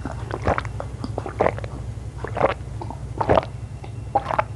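Close-miked mukbang eating sounds: soft, irregular clicks and crunches every half second to a second, over a steady low hum.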